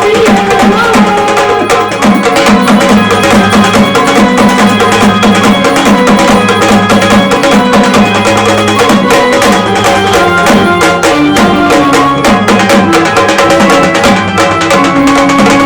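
Gondhal devotional music: a sambal drum pair struck in a fast, dense rhythm over steady held chords from an electric organ.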